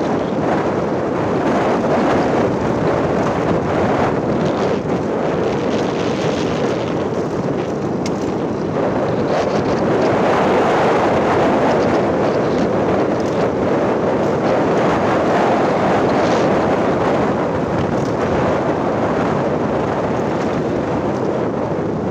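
Wind rushing over the microphone of a moving motorcycle, a steady loud noise, with the bike's running and road noise underneath.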